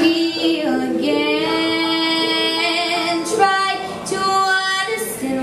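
A young girl singing solo into a microphone, holding long notes.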